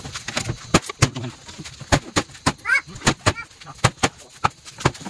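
Kitchen knife chopping meat on a wooden cutting board, with sharp chops coming unevenly about twice a second. A short bird call sounds a little past the middle.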